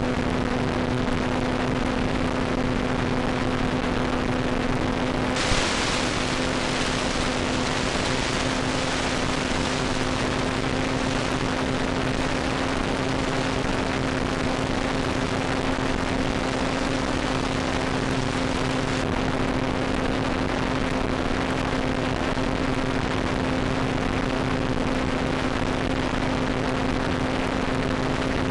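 Steady hiss of static with a constant low hum, the audio channel of an analog FPV video downlink as recorded by the ground-station DVR. The hiss turns brighter about five seconds in.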